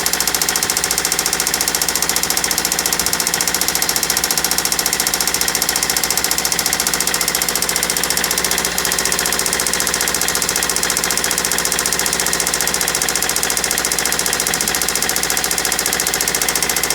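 Toyota Celica's replacement JDM engine running with a rapid, steady knock that sounds horrible. The owner was told the knock might be carbon buildup on top of the cylinder that could clear after about ten minutes of running.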